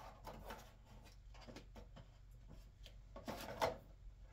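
Faint rustling and scraping of cards being sorted through by hand, with a louder shuffle about three and a half seconds in.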